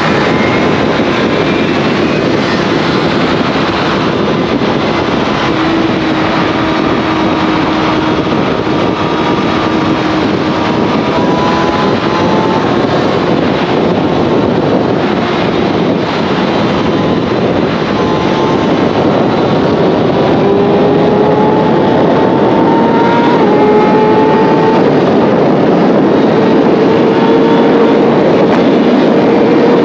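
Motorcycle engine under way with heavy wind rush on the microphone; the engine note climbs slowly and steps back down several times.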